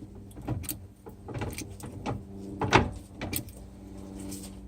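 Ford 8.8 Trac-Lok limited-slip differential clicking and clunking as the carrier is turned by hand: several irregular sharp knocks, the loudest a little under three seconds in. The owner puts the noise down to worn spider gears, one with about 1/8" of play.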